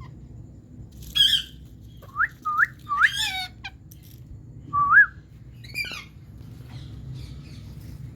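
Indian ringneck parrot calling: a few squawks mixed with short whistles that sweep upward in pitch, about half a dozen calls spread over a few seconds.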